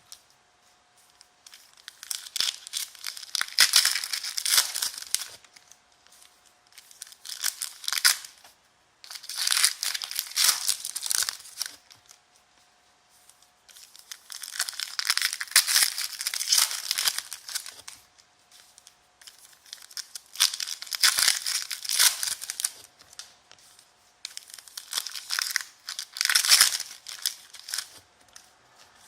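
Foil trading-card pack wrappers being torn open and crinkled by hand. The crinkling comes in repeated bursts of a couple of seconds each, with short pauses between.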